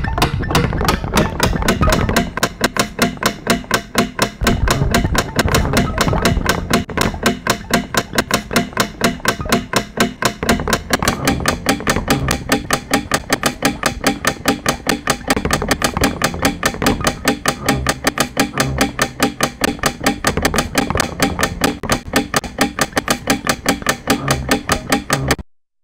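Rapid, evenly repeated percussive knocks, several a second, layered over faint steady tones, cutting off suddenly near the end.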